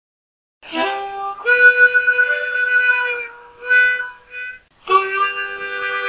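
Harmonica playing chords, starting just under a second in: a long held chord, two short chords, then another long held chord.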